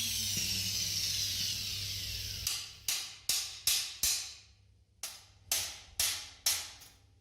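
Compressed-air blow gun hissing in one steady blast with a faint falling whistle, then about ten short sharp blasts with a pause in the middle.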